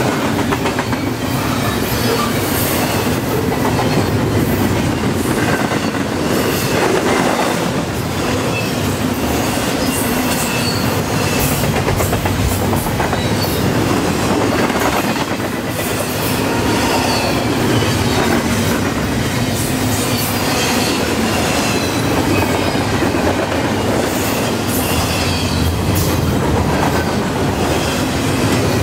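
Double-stack intermodal container well cars rolling steadily past: a continuous rumble of steel wheels on rail, with clicks and clatter over the rail joints and a faint wheel squeal now and then.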